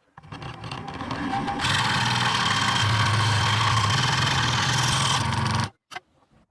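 Homemade PVC scroll saw running: it starts up, gets much louder about a second and a half in, runs steadily, then stops abruptly, with a single click just after.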